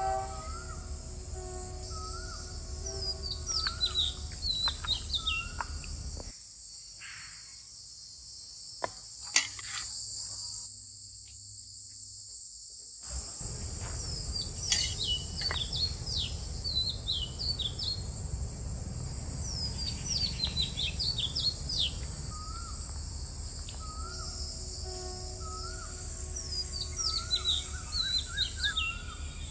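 Rural outdoor ambience: a steady high-pitched insect drone with songbirds chirping and calling over it, plus two sharp clicks.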